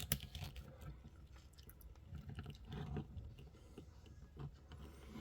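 Small plastic clicks and rubbing as a plastic action figure is handled and posed, in short irregular bursts.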